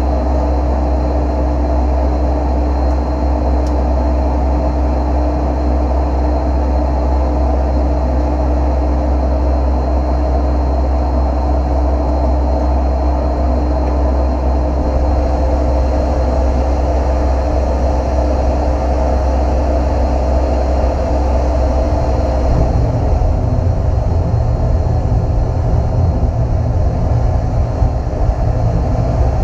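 Foundry crucible furnace burner just lit and running with a loud, steady rush. Its low rumble shifts about three-quarters of the way through.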